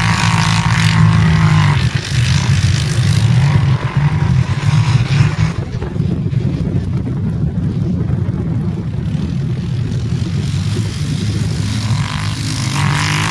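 Quad bike (ATV) engines running and revving steadily, with more rasp in the first couple of seconds and again near the end as a quad comes close past on the track.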